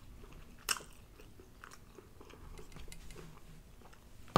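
Faint close-up chewing of food, with one sharp crunch about two-thirds of a second in and a few soft ticks afterwards.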